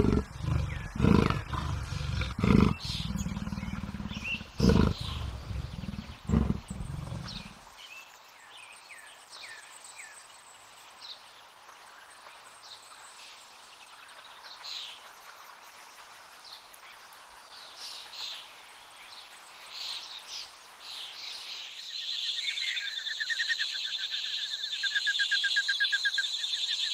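Leopard growling in several loud, deep bursts for the first eight seconds or so, then birds chirping over a quiet background. About 22 seconds in, a steady, rapidly pulsing high trill sets in.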